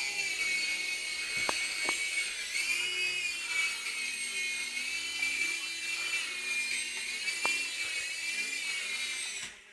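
High-pitched whine of a helicopter, holding roughly steady with slight rises and falls in pitch, with a few faint clicks. The whine cuts off suddenly near the end.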